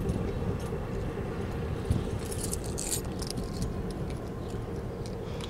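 Diesel switcher locomotive moving slowly with a cut of covered hopper cars, its engine a low steady rumble. A cluster of light metallic clicks and rattles from the moving cars comes about two to three and a half seconds in.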